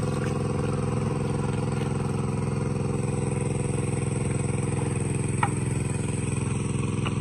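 Small engine of a water pump running steadily at a constant speed. A brief high chirp sounds about five seconds in.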